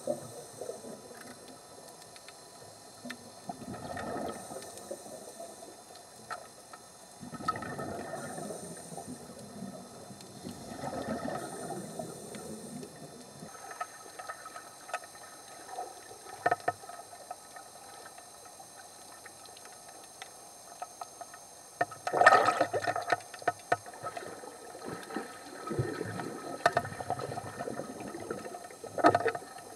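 Water sloshing and bubbling around an underwater camera, in irregular gurgling surges with scattered small clicks; the loudest surge comes about two-thirds of the way in.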